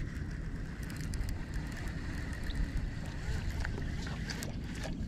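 Wind rumbling on the microphone, with faint scattered clicks and a faint steady high hum.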